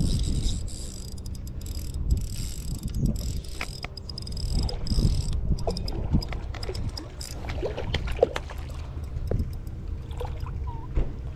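A Daiwa Airity 2500S spinning reel being wound as a hooked black bream is played on a bent light rod: soft mechanical reel clicks and whirring with scattered handling knocks, over a low rumble. A sharp knock about eight seconds in is the loudest sound.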